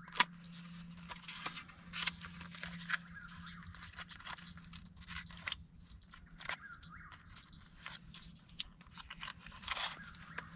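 A .410 shotgun being handled and loaded: a string of sharp clicks and knocks from the gun's action and shells, with rustling of gear in between and the sharpest click right at the start. A faint steady low hum runs underneath.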